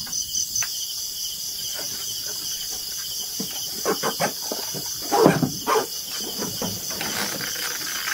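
Night insects chirping steadily in high, pulsing trills. A cluster of knocks and bumps comes around the middle as a plastic storage box is carried and set down on the wooden plank floor.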